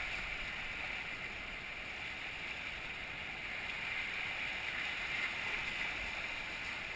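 Whitewater rapids rushing steadily around a raft, a constant, even churn of fast water close by.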